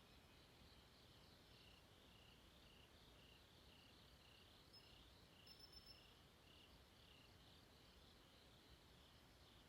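Faint chorus of night insects chirping in an even pulse, about two chirps a second, with a few brief higher chirps about five seconds in.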